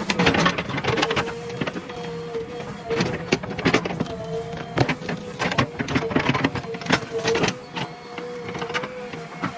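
JCB 3DX backhoe loader at work: the diesel engine runs under load with a steady hydraulic whine, broken by repeated clanks and scrapes as the bucket digs into soil.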